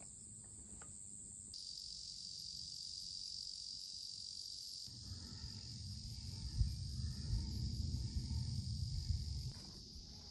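Outdoor insect chorus, crickets giving a steady high-pitched chirring drone. From about halfway in until near the end a low rumble rises underneath it, louder than the insects.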